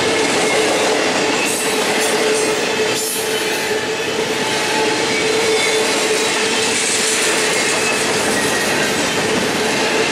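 A CSX double-stack intermodal freight train's container well cars rolling steadily past, with continuous wheel-on-rail noise and a steady tone running through it.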